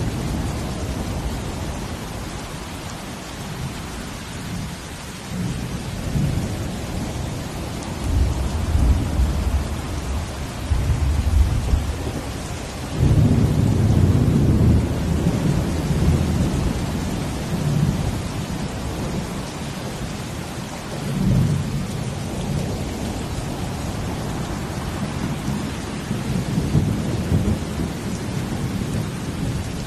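Steady rain hiss with deep low rumbles swelling and fading, heaviest in the middle stretch and once more about two-thirds through.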